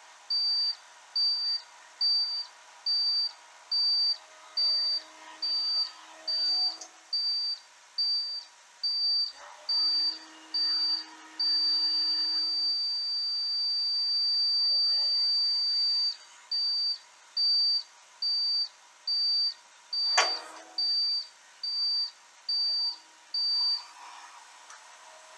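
Electronic warning beeper pulsing in high, even beeps about one and a half times a second, held as one continuous tone for about four seconds midway, then stopping shortly before the end. A single sharp click sounds about twenty seconds in.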